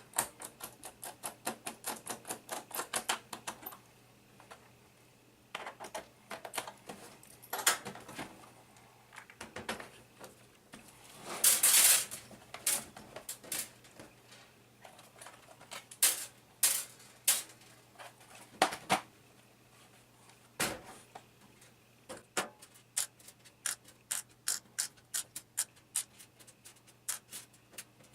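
Quick runs of small sharp clicks and taps from working on a laptop by hand: screwdriver, screws and plastic case parts being handled, with one louder, longer burst of noise about twelve seconds in.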